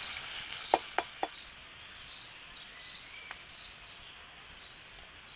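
A metal spatula clicks against an iron wok three times in the first second and a half while ginger and garlic are stirred in hot oil. Through it, a short high chirp repeats about once a second.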